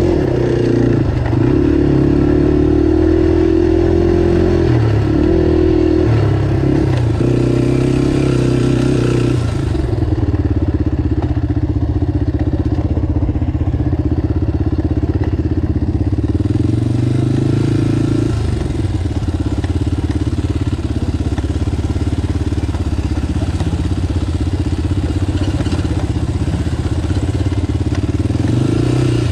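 ATV engine running while riding a trail, revving up and down for about the first ten seconds, then pulling at a steadier speed.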